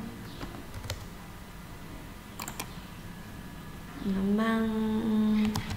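A few sharp computer-keyboard clicks, then about four seconds in a woman's voice holds a long, level-pitched hesitation sound in two parts.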